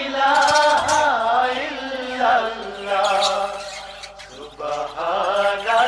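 A solo voice singing a drawn-out, wavering devotional chant, the opening of a Bengali Islamic song.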